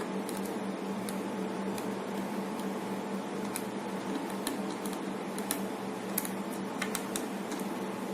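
Steady low mechanical hum with a constant tone, like a fan running, with faint light ticks scattered throughout.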